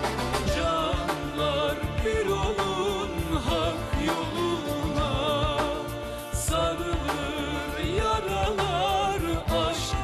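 Man singing a Turkish folk song in long, drawn-out lines over a band with a steady drum beat.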